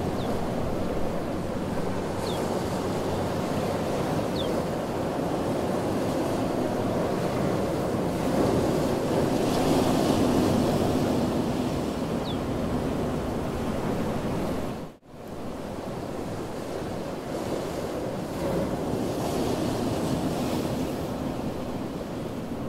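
Sea surf breaking and washing on the shore, with wind rushing over the microphone. The sound swells about halfway through and cuts out for a moment about fifteen seconds in before carrying on.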